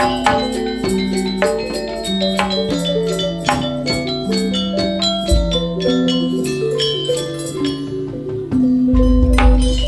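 Javanese gamelan music: struck metallophones play a stepped melody of ringing notes, with a deep low stroke about five seconds in and another heavier low boom near the end.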